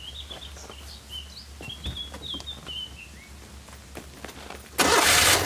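Birds chirping, with light footsteps. Near the end, the Citroën 2CV's rebuilt 652 cc air-cooled flat-twin engine starts up with a short, loud burst as it catches and settles into running. This is its first start with the full exhaust fitted.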